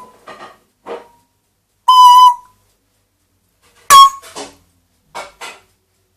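Pet parrot whistling loudly and piercingly: a held whistle about two seconds in and a sharper, louder call at about four seconds, with short softer squawks and chirps between and after them.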